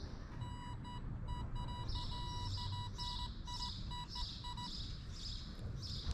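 Electronic beeping at one steady pitch, in irregular short and long pulses that stop about four and a half seconds in. Over it, high short chirps repeat about twice a second.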